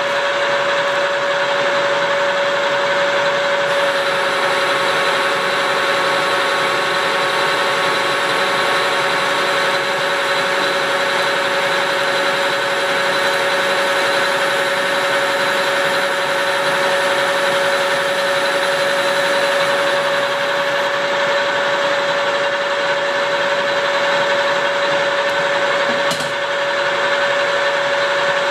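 Lathe running steadily with a constant whine, turning the new chipper-drum shaft under a tracer-guided cut. A brief click comes near the end.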